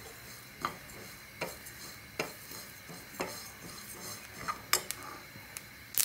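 Steel spoon stirring flaxseed and sesame seeds as they dry-roast in a nonstick pan, with a sharp knock of the spoon against the pan about once a second over the soft shifting of the seeds.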